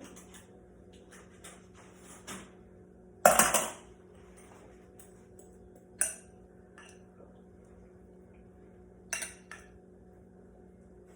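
Spoon clinking and scraping against a dish while a cheese filling is spooned into a chicken breast: a short clatter about three seconds in, then single sharp clinks around six and nine seconds, with faint taps in between.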